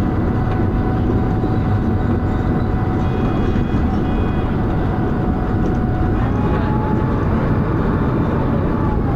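Dennis Arrow bus heard from inside while under way: a heavy, steady diesel rumble and thrash, with a thin high-pitched whine running over it that rises a little about six seconds in and then drops back. A brief pair of higher tones sounds about three seconds in.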